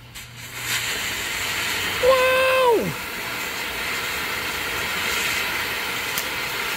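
Ground fountain firework (Monkey Mania Bouncy Beans) flaring back up just after the start and spraying sparks with a steady hiss. About two seconds in, a man calls out a drawn-out 'whoa' whose pitch drops at the end.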